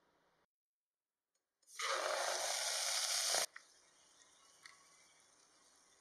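Raw mutton pieces hitting hot oil in an aluminium pressure cooker: a loud sizzle starting about a second and a half in that cuts off abruptly after about two seconds, then a faint steady sizzle with a few small pops.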